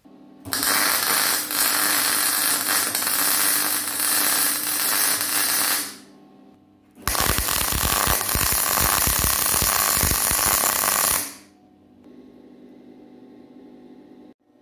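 MIG welding arc crackling and hissing on steel in two runs, the first about five seconds long and the second about four, with a short break between, as a square steel duct and flange are welded into a steel floor plate. A steady low hum sounds under the welding and carries on quietly after the arc stops.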